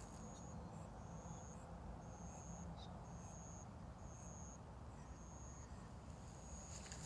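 A high-pitched chirp repeating about once a second, each chirp about half a second long, over a low steady rumble.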